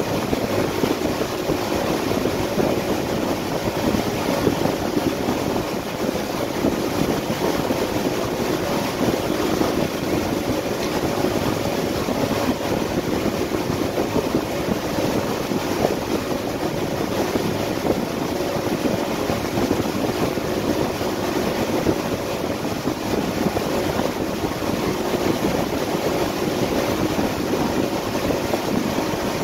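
2016 Yamaha AR240 boat running steadily under way at wakesurf speed: engine hum under the rush of water churning in the wake, with wind buffeting the microphone.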